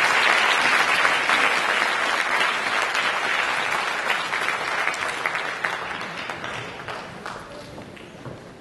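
Audience applauding, a dense patter of many hands clapping that slowly thins and dies away over the last few seconds.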